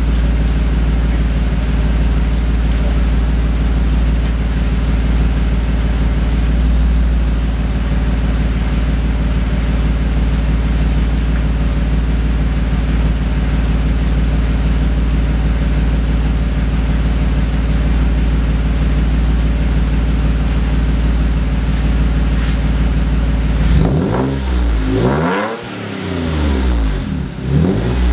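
2003 Mazda6s 3.0-litre V6 with an aftermarket shorty header and high-flow metal-core catalytic converter, idling steadily through its exhaust. About 24 seconds in, the throttle is blipped several times in quick succession, the engine revving up and dropping back each time.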